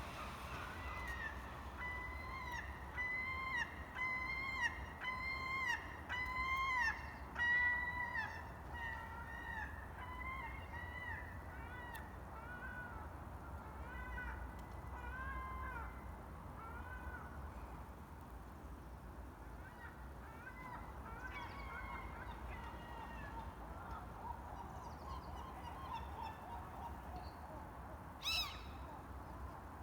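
A bird giving repeated honking calls, about two a second, loudest in the first half, then fading and thinning out. One short, sharper call comes near the end.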